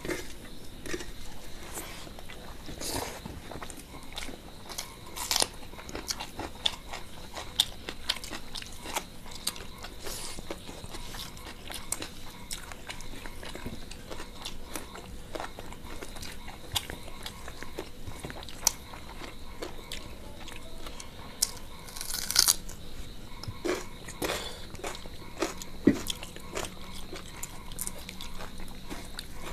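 Close-miked eating sounds of two people chewing mouthfuls of chicken curry and rice, with irregular wet smacks and sharp clicks, and fingers mixing rice on metal plates. The loudest burst of smacking comes about 22 seconds in.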